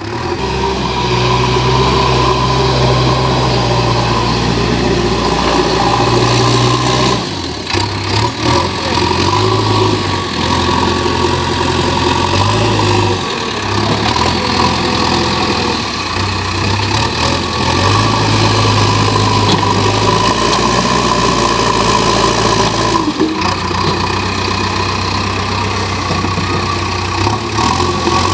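JCB backhoe loader's diesel engine running as the machine works, its note stepping up and down every few seconds as the load changes.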